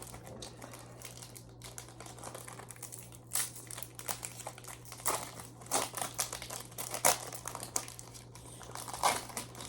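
Foil Pokémon trading-card booster pack wrappers crinkling and rustling as they are handled and opened, in irregular bursts of varying loudness, over a faint steady low hum.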